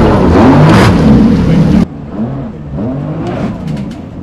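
Jet ski engines revving up and down at close range over the rushing spray of the water jet. About two seconds in the sound drops abruptly to a quieter jet ski revving as it pulls away.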